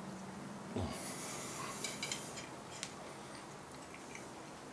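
A man chewing a mouthful of food, with a breath out through the nose about a second in and a few small mouth clicks over the next two seconds.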